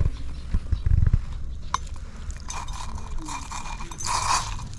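Metal spoon clinking and scraping in a small stainless steel pot as cooked rice is scooped out, in short scratchy bursts in the second half. Before that come a few low thumps about a second in and a single sharp click.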